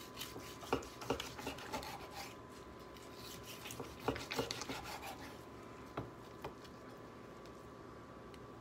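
A long kitchen knife sawing through a bacon-wrapped smoked pork loin: rasping back-and-forth strokes with sharp taps of the blade on a wooden cutting board, in two bouts, then a couple of single clicks.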